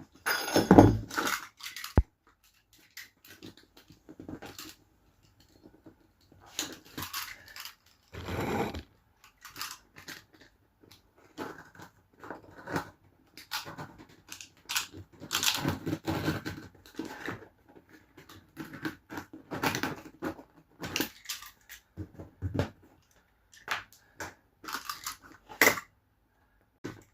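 A sheet of vinyl lino being handled and trimmed on a van floor: irregular scrapes, rustles and knocks, with a sharp click about two seconds in.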